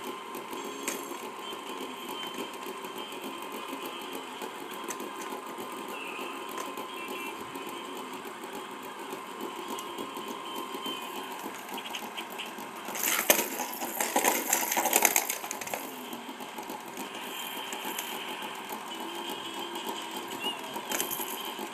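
Battery-powered toy race track's small motor whirring steadily. About thirteen seconds in, a louder clattering of plastic lasts for about two seconds.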